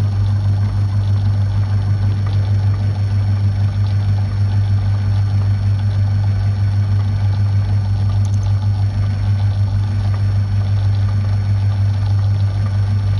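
Small metalworking lathe running with a loud, steady hum while the tool takes a facing cut on the end of a small pin held in a collet.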